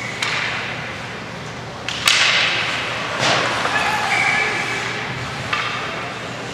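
Ice hockey play in an indoor rink: several sharp knocks of puck and sticks against the boards and pads, each echoing, the loudest about two seconds in, over a background of spectators' voices.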